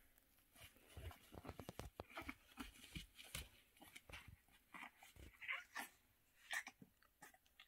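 English Bulldog puppy scuffling about on a puppy pad, with scattered small clicks and scuffs, and two short high whines a little past halfway, the second about a second after the first.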